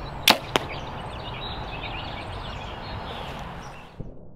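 A compound bow shot and the arrow, a light 418-grain carbon arrow with a Montec M3 broadhead, striking a block of ballistic gel: two sharp cracks about a quarter second apart, then steady outdoor background.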